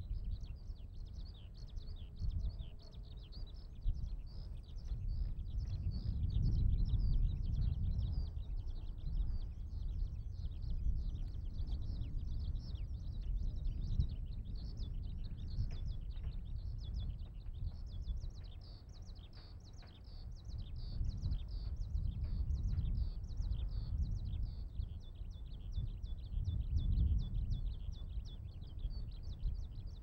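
Eurasian skylark singing in song flight: a long, unbroken stream of rapid, high chirps and trills. A low rumble swells and fades beneath it.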